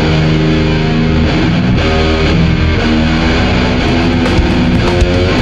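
Death-doom metal: loud, heavily distorted electric guitars holding slow chords that change about once a second, over a heavy low end.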